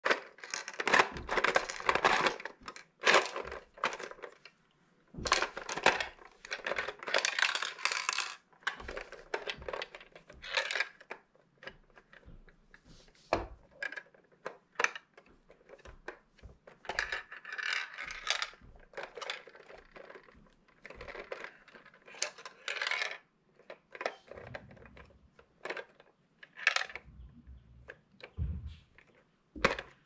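Rubik's Perplexus maze cube turned and tilted in the hands: small metal balls rattle and roll in their plastic mazes in irregular clusters of clinks, along with clicks of the plastic cube pieces as they turn.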